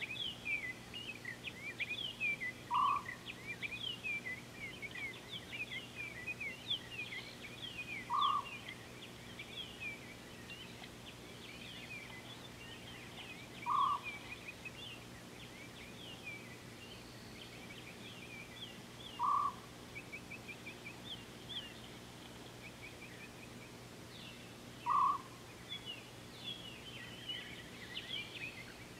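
Wild birds chirping in a dense chorus. A short, lower call repeats about every five and a half seconds and stands out as the loudest sound.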